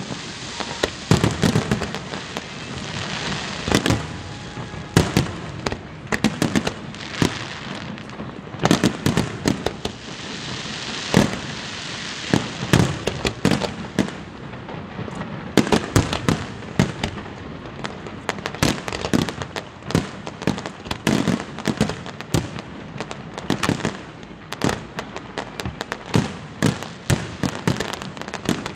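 Fireworks display: aerial shells bursting in quick, irregular succession, many sharp bangs over a continuous crackle.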